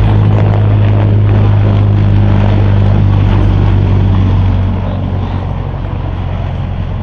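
Loud, low, steady engine drone over a broad rumble, easing off about four and a half seconds in.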